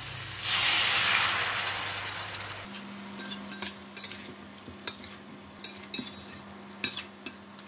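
Sauce hitting a hot stainless-steel wok of fried chicken feet and mushrooms sizzles, loudest at first and dying away over about two seconds. Then a metal slotted spatula stirs in the steel pan with irregular clinks and knocks against the sides.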